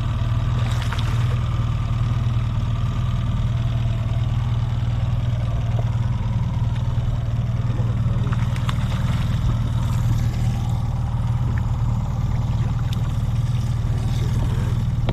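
Small outboard motor running steadily at low trolling speed: a constant, even low hum.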